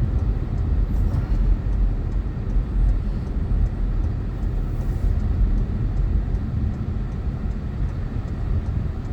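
Steady low rumble of road and engine noise inside a moving Toyota car's cabin.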